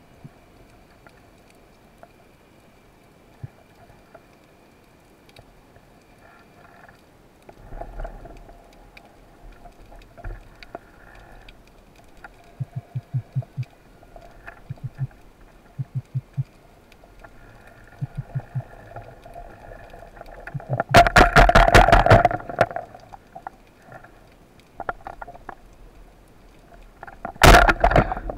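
Underwater sound on a spearfishing dive with a band-powered speargun: a faint steady hiss with scattered clicks, then short runs of low thumps. Two loud crackling bursts follow, a longer one about two-thirds through and a short one near the end, as the speargun is fired.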